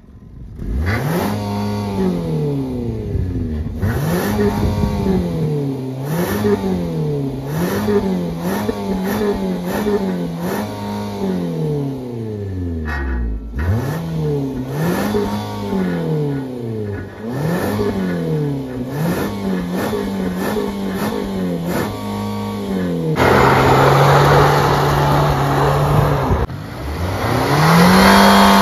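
Nissan Rogue's four-cylinder engine revved hard through its exhaust while standing still, in repeated blips: the revs climb and fall back about once every one to two seconds. About two-thirds of the way in it is held at high revs for a few seconds, louder than the blips; it then drops and climbs back to a high hold near the end.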